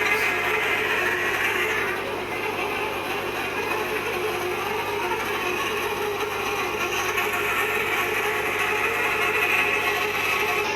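Manual hot-tapping machine working on a steel pipe: a steady, continuous mechanical sound.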